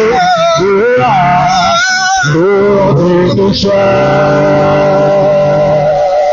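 A man singing a Yoruba church chorus with a strongly wavering voice, settling into one long held note from about halfway through.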